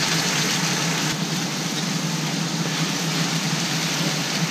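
Green herb seasoning sizzling in hot oil in a wok, an even frying hiss, with a steady low hum underneath.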